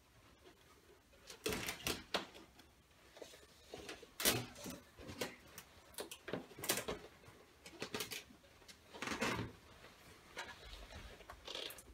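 Latex balloons taped across a doorway rubbing and squeaking as a person squeezes through them, with scattered bumps against the floor and door frame. The sounds come as a string of short scrapes and squeaks, the loudest about four seconds in.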